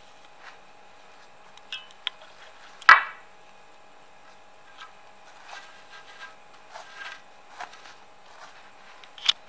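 Cotton rope being drawn through the holes of a wooden embroidery-frame bar: scattered soft rubbing and scraping of rope on wood as it is handled. There is a sharp knock about three seconds in, the loudest sound, and another shortly before the end, over a faint steady hum.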